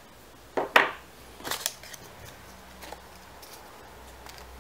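Small hard plastic items, a camera battery and its snap-on plastic cover, set down on a wooden table: one sharp clack about a second in, two lighter knocks soon after, then a few faint ticks.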